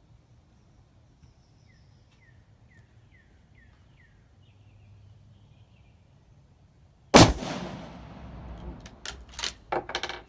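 A single shot from a Savage 110E bolt-action rifle in .270 Winchester about seven seconds in, with a long echo dying away. It is followed by a quick run of sharp metallic clicks as the bolt is worked. Before the shot a bird chirps faintly several times.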